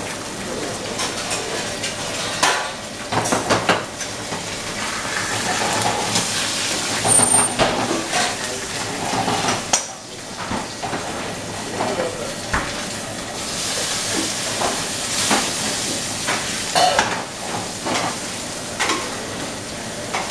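Sea bass fillet sizzling as it pan-sears in coconut oil in a frying pan over a gas burner, with scattered clinks of metal tongs and utensils against the pan and tray.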